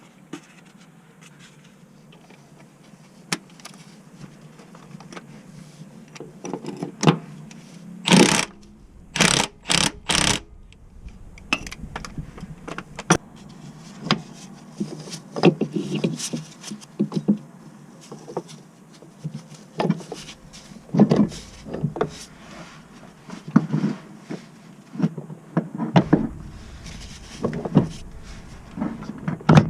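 Irregular knocks, clicks and scrapes of hands-on work, with four short loud hissing bursts about eight to ten seconds in.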